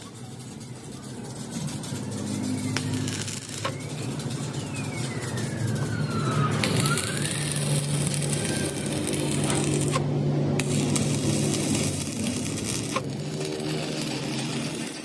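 Stick welding arc crackling and sizzling as a bead is run along a steel truck front axle beam, over a steady low hum. The arc breaks off for a moment about ten seconds in, then strikes again.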